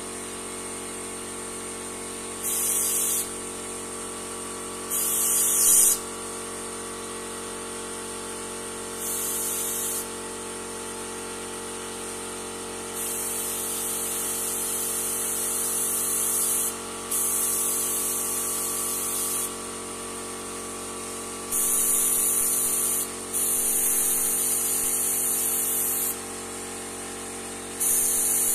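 Airbrush spraying paint in repeated hissing bursts, some under a second and some a few seconds long, with short pauses between. A steady mechanical hum runs underneath.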